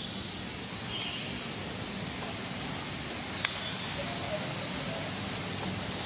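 Steady outdoor background noise with a single sharp click about three and a half seconds in, and a few faint, short high chirps.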